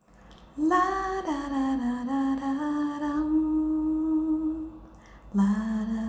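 Humming on the channel card: a voice holds long notes, the first sliding down and held for a few seconds, then a lower note starting about five seconds in.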